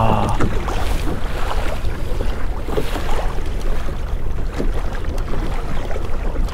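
Steady wind rumble buffeting the microphone, with water lapping against a kayak.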